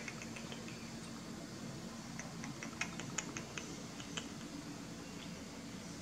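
Steady low room noise with a run of faint, quick clicks about two to four seconds in.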